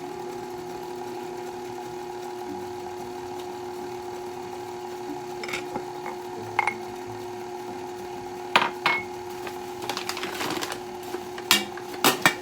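Electric kitchen mixer running steadily on low, mixing muffin batter. Several sharp clinks and knocks come in the second half, the loudest about two thirds of the way through and near the end.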